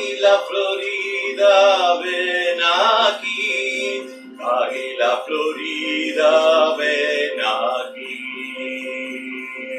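Shruti box sounding a steady reed drone, with a man's voice chanting long sung syllables without clear words over it. The voice stops about eight seconds in, leaving the drone alone.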